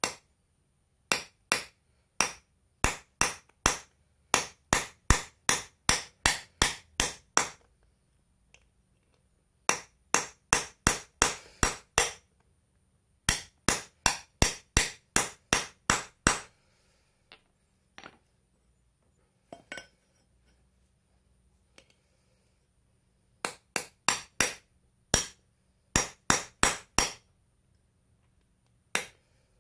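Hammer striking a metal part in quick sharp blows, about two or three a second, in runs of roughly eight to fourteen strikes with short pauses between, typical of tapping a ball bearing into or out of a fan motor's end bell.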